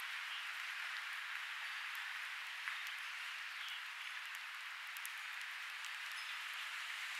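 Steady hiss with a few faint, scattered ticks.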